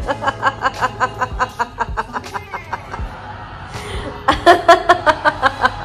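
A person laughing hard in quick repeated bursts, two runs of laughter with a short pause between, over background music.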